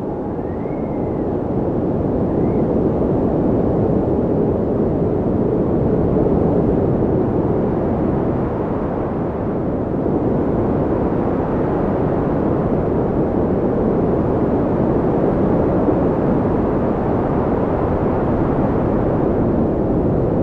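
Strong winter storm wind blowing: a loud, steady, low rush that builds over the first few seconds and then holds.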